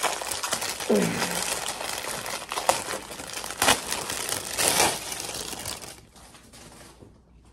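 Clear plastic bag crinkling and rustling as a folded T-shirt is pulled out of it, with a few louder crackles, dying away about six seconds in.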